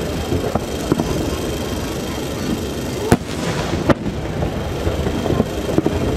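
Fireworks display: a continuous crackle of bursting shells with about half a dozen sharp bangs, the loudest about three seconds in.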